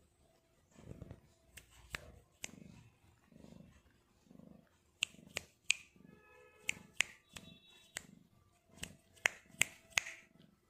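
Orange tabby cat licking its fur close up: sharp, wet tongue clicks, coming in quick clusters in the second half, over a low, pulsing purr.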